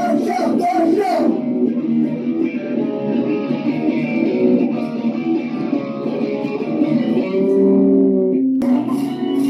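Guitar-led band music from a rough demo recording: sustained guitar notes and chords, with the sound changing abruptly about a second in and again near the end.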